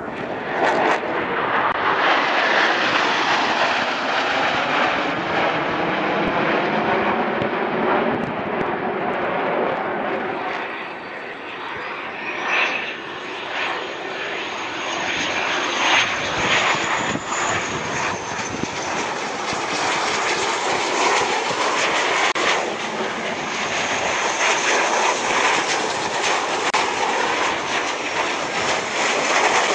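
Jet noise from a Blue Angels F/A-18 Hornet's twin turbofan engines as the jet passes low with its landing gear down. A high whine rises about a third of the way in and fades a few seconds later.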